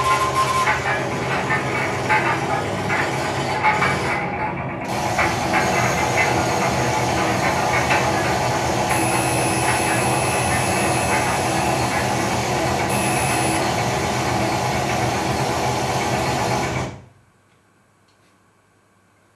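Dense, noisy recorded sound-effect track played as a dance soundtrack, with a few held tones in it; it fades out near the end, leaving near silence.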